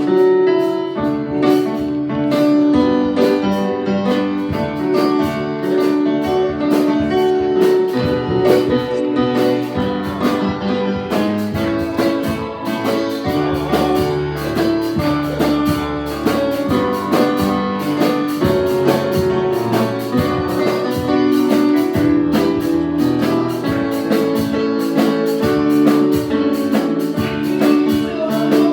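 Instrumental worship music led by a keyboard, with a steady beat.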